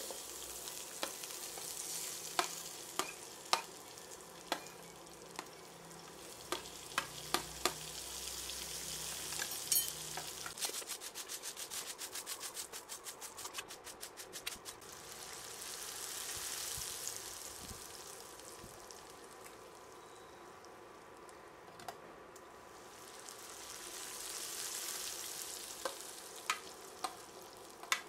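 Onion and tomato slices frying in oil in a stainless steel pan, a sizzle that swells and fades several times, with sharp clicks of a utensil against the pan as they are stirred. In the middle comes a few seconds of rapid light ticking.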